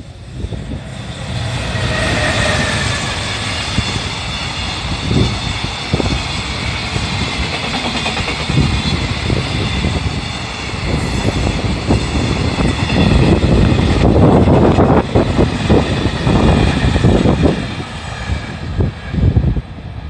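EF210 electric locomotive hauling a long container freight train past: the rumble and rail noise of the locomotive and container wagons rolling by, building in the first couple of seconds, loudest about two-thirds of the way through, and dropping off near the end.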